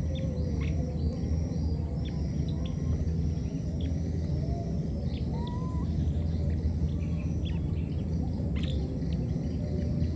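Outdoor ambience: a steady low rumble with many short bird chirps scattered throughout, and a few faint whistle-like calls.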